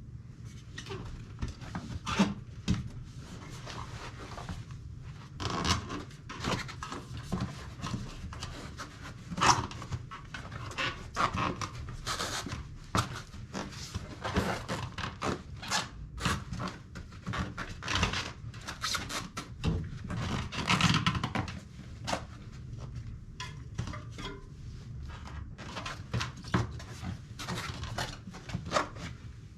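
Irregular scraping, creaking and knocks of rubber against the metal rim as a fat bike tire is pushed back over the wheel rim by hand.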